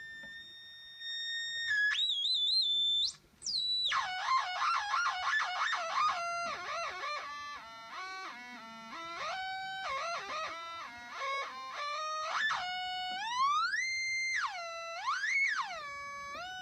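Gibson SG electric guitar through a Zvex Fuzz Factory fuzz pedal and a Roland Cube 30 amp, the pedal squealing in self-oscillation with theremin-like tones. The pitch holds, jumps, and warbles quickly in the middle, then sweeps up and down in a whine near the end.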